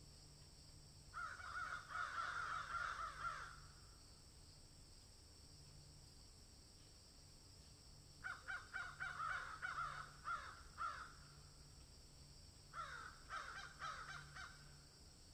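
Birds calling in three bursts of rapid repeated calls: about a second in, around eight seconds in, and again near the end.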